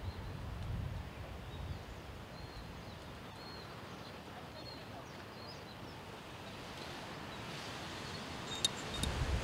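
Faint outdoor ambience: a soft steady hiss with a light wind rumble on the microphone in the first second. A few faint, high bird chirps come a couple of seconds in, and two small clicks come near the end.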